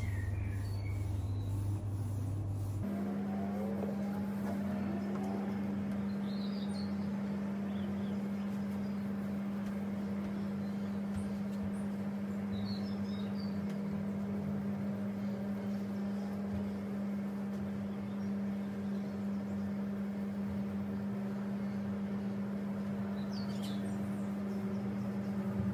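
A steady low electrical or mechanical hum with a row of overtones, jumping up in pitch about three seconds in, with a few faint bird chirps.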